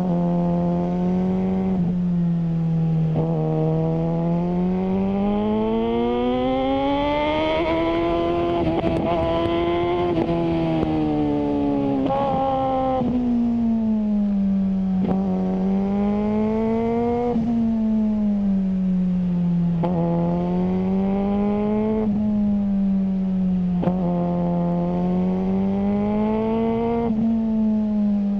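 Suzuki GSR600 inline-four engine through a GPR Ghost aftermarket exhaust, its note climbing and falling again and again: one long climb of several seconds, then shorter rises that each drop back every two to three seconds.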